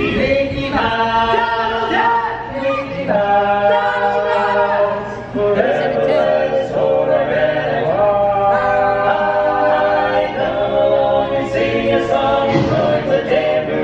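Barbershop quartet singing a cappella in close harmony, with several voices holding chords together that shift from one to the next.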